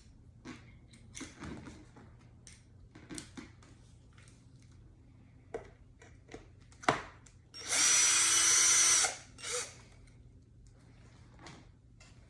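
Cordless drill/driver running for about a second and a half, backing out one of the board's screws, with light clicks and knocks of the tool and screws being handled before it.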